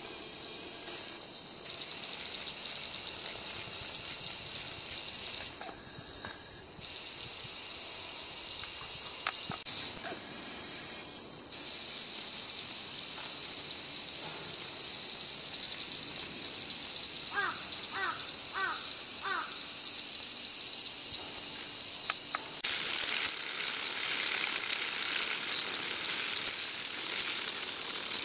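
A dense chorus of many cicadas buzzing steadily in one high, shrill band that never breaks. About two-thirds of the way through, a bird gives four short calls in quick succession.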